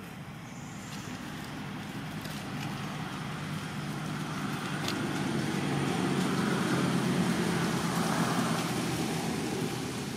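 Steady engine hum of a passing motor vehicle, growing louder to its peak about two-thirds of the way through, then easing off.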